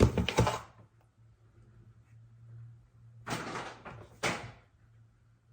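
Freezer door and drawers being shut: a loud clatter of knocks right at the start, then two more short knocks about three and a half and four and a quarter seconds in.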